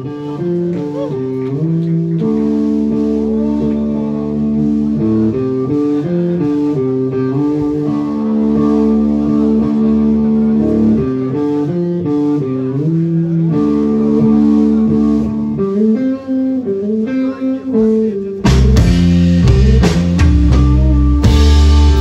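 Live psychedelic space-rock band: electric guitar plays a slow melodic line of held notes over bass. About eighteen seconds in, the full band comes in much louder with drums and cymbals.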